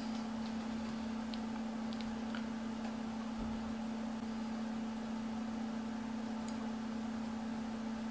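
Steady low hum of room tone, with a few faint light clicks in the first couple of seconds as a fishing hook and a small plastic hook-tying tool are handled.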